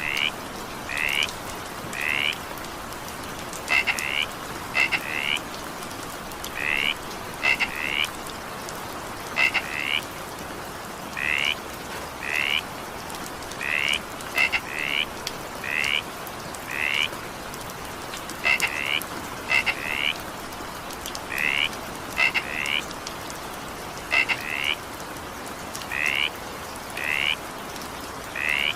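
Frogs croaking over steady rain: short calls, often in quick pairs, about one a second, over an even hiss of rainfall.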